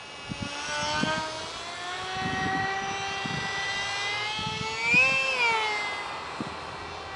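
High-pitched whine of an ultra micro RC jet's small electric motor in flight. It climbs slowly in pitch, swings briefly up and back down at its loudest about five seconds in as the plane passes close, then fades as it flies off.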